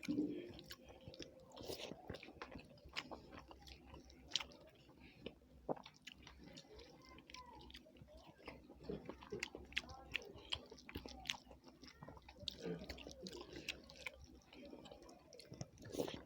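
Faint close-up chewing and mouth sounds of people eating a rice-and-curry meal, with many small irregular clicks and smacks.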